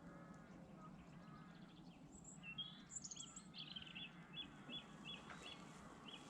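Faint birdsong: soft chirps, then from about two seconds in a run of short repeated notes, roughly two a second, over a low steady background.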